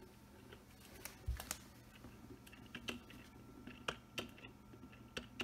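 Remote-control GyroSphere toy's clear plastic sphere rolling across a ceramic tile floor, giving irregular sharp plastic clicks and taps, with one dull thump about a second in.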